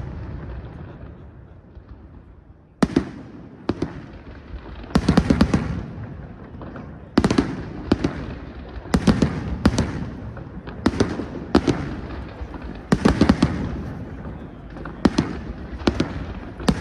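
Fireworks going off: after a brief lull, a run of sharp bangs about once a second, each followed by crackling and a rolling echo.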